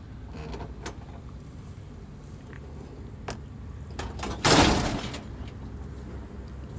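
Metal work on a tilted truck cab: a few light metal clicks, then one loud clunk with a short rushing hiss about four and a half seconds in, over a low steady hum.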